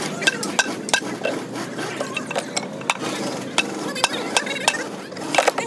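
Irregular sharp metallic clinks and taps of hand tools and engine parts knocking together, a quick flurry of them near the end.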